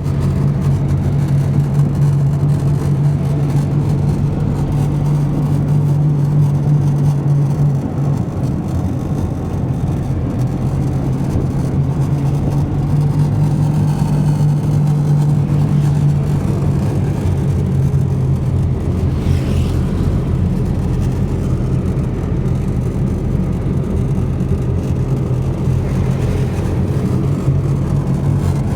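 Motor vehicle engine running steadily while driving, a constant low drone that barely changes in pitch.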